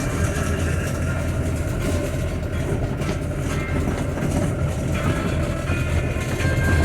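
Steady low rumble of a vehicle driving on the road, engine and road noise heard from inside the cab.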